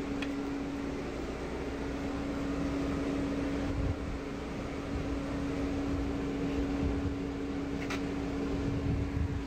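Steady machine hum holding one pitch, with a low rumble beneath it, and a single sharp click about eight seconds in.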